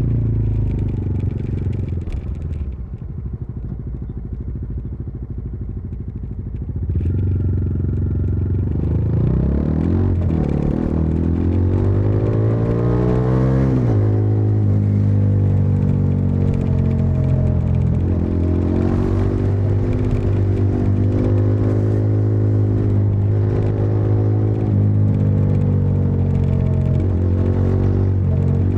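Bajaj Dominar 400's single-cylinder engine and exhaust under way. It eases off to a quieter low run for a few seconds, picks up again about seven seconds in and revs up through the gears, its pitch climbing and dropping back at shifts, then settles into a steady cruise.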